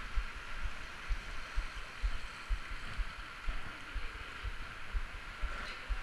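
Steady rush of a shallow stream flowing through a limestone cave passage, with dull low thuds of footsteps in the water about twice a second.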